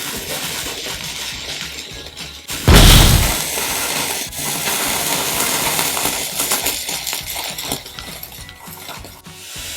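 A firework goes off with a single loud bang about three seconds in, bursting a balloon filled with glue, and is followed by several seconds of hissing. Background music plays throughout.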